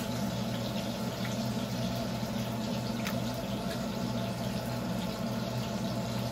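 A steady low hum and hiss, with a few faint soft knocks as wet raw chicken pieces are laid into a nonstick frying pan.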